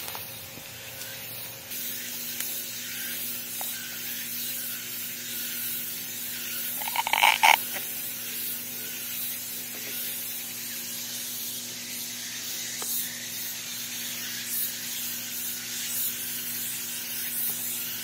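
Steady hiss with a faint low hum. About seven seconds in, an Amazon parrot gives one brief call.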